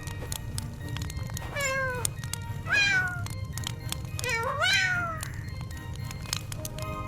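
Three kitten meows, each gliding in pitch, the first falling and the last two rising then falling, over soft background music.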